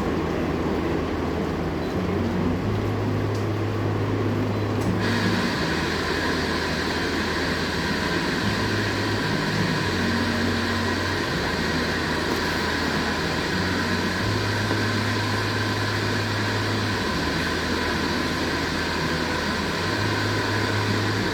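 Steady rain ambience, an even hiss, under low held notes that change every couple of seconds. About five seconds in, a steady high whine joins and holds.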